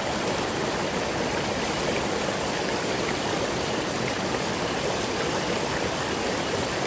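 Small rocky mountain stream rushing steadily over stones and a little cascade.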